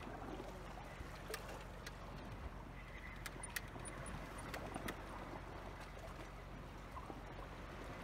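Faint sea water lapping and washing against a rocky shore over a low steady rumble, with a handful of sharp, irregular clicks scattered through the middle.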